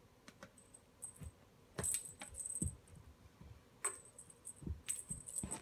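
Small bell jingling in two short bursts, about two seconds in and again near the end, with light clicks and a few soft thumps as cats play at a wand toy.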